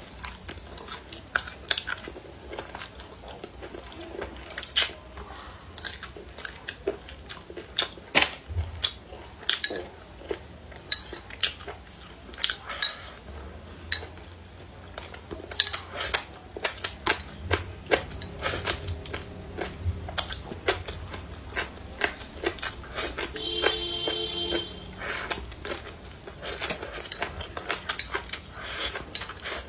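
Chopsticks clicking and scraping against a ceramic rice bowl at irregular intervals while food is picked up and eaten, with quieter mouth sounds of chewing between the clicks.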